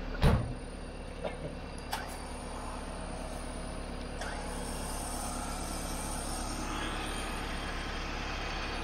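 Off-road vehicle engine idling steadily, with a heavy thump just after the start and a few light knocks later.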